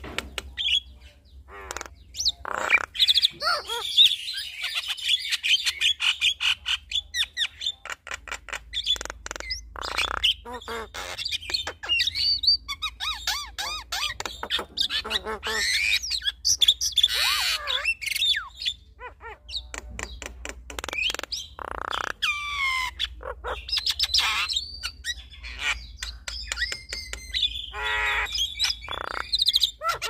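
Two Javan mynas, a male and a female, singing together: a dense, varied stream of whistles, rising and falling glides, harsh squawks and sharp clicking chatter with hardly a pause. This is the birds competing and showing off their full repertoire of learned and imitated phrases.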